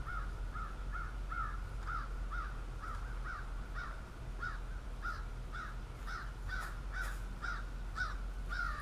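A bird calling the same short note over and over, evenly about two times a second.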